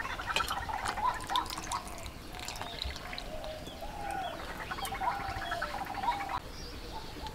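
Water splashing and sloshing as hands rub and lift jujube berries in a steel bowl of cold water, with birds calling in the background.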